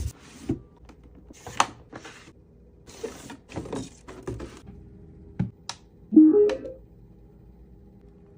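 Scattered clicks, taps and knocks of small objects being handled. A brief, louder pitched squeak-like sound comes about six seconds in, over a faint steady hum.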